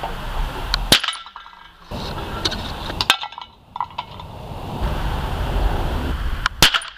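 Sharp shots from a homemade hydrogen-combustion rifle, a spark firing the hydrogen gas in its chamber: three reports, about a second, three seconds and six and a half seconds in. Metal clinks of tin cans being hit.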